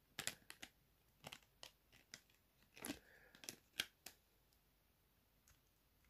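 Faint clicks and light scrapes of a mobile phone's battery cover being slid back on and snapped into place: about ten small clicks over the first four seconds, then quiet.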